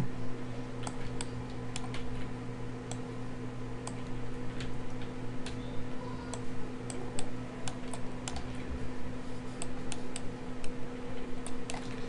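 Computer mouse and keyboard clicks, scattered and irregular, from someone working in 3D modelling software, over a steady low electrical hum.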